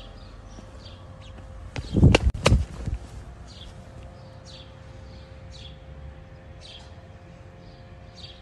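Small birds chirping over and over, short high calls every half second to a second. Two loud thumps come about two seconds in.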